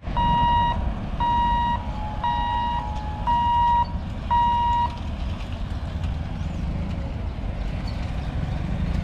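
Level-crossing warning buzzer beeping five times, about once a second, while the gate's boom barriers lift. A steady low rumble of waiting motorbikes and auto-rickshaws runs under it and carries on after the beeps stop.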